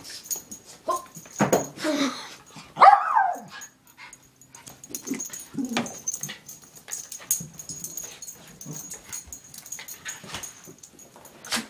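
A dog barking and whining in short, irregular bursts as it goes after a Nano Bug toy, trying to bite it. The loudest is one high, wavering cry about three seconds in; scuffles and knocks come in between.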